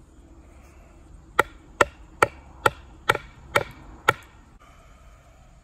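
Seven sharp blows, about two a second, of a wooden baton striking the axe head set on the end of a wooden axe handle, each with a short ring. The handle's top is being split to make room for a wedge.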